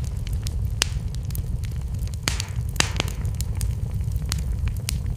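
Wood fire burning: a steady low rush with frequent, irregular sharp crackles and pops, a few of them louder near the middle.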